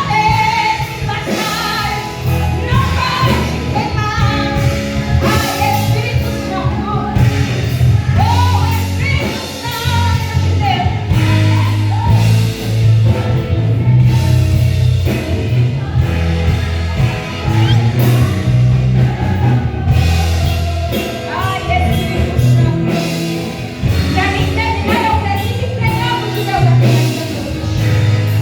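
A woman singing a gospel song live with a band, a strong bass line and drum beat under her voice.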